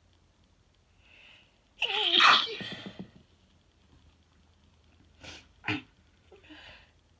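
A person sneezing: a short intake of breath, then one loud voiced 'achoo' about two seconds in, falling in pitch. Two short sharp bursts of breath follow a few seconds later, then a soft breath.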